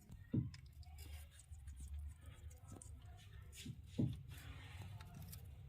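A parrot biting and chewing a guava: small crunching bites and beak clicks, with two louder thumps, one just after the start and one about four seconds in.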